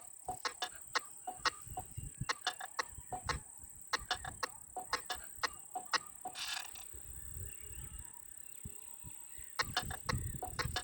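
Nothing Phone 2 ringtone playing through the phone's speaker: very short pitched blips in quick, irregular clusters, with a brief hissy burst about six seconds in and a denser run near the end.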